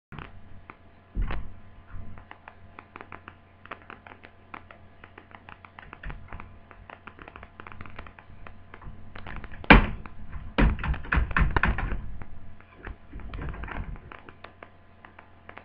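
Plastic clicks, taps and knocks of an HP G62 laptop's casing being handled and pried apart to free the touchpad, with one sharp knock about ten seconds in followed by quick runs of rattling clicks.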